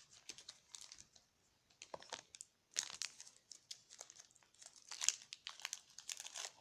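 Crinkling and rustling of a foil trading-card booster pack wrapper being handled, in a string of short crackles that are loudest about three seconds in and again about five seconds in.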